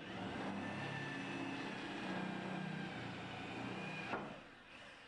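Electric drill running as it bores through the wooden door for the handle spindle and keyhole, then stopping about four seconds in.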